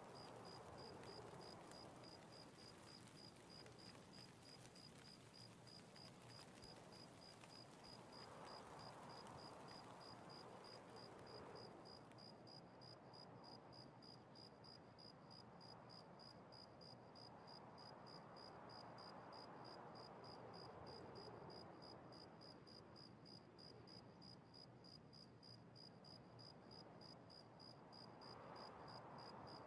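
Near silence: faint room tone with a rapid, even, high-pitched pulsing and soft swells of hiss every eight to ten seconds.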